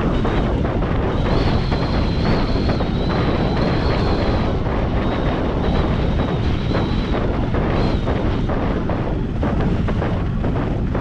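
Wind rushing over the microphone of a paraglider pilot in flight: a steady, heavy rumble of wind noise. A faint thin high whistle comes and goes through the first several seconds.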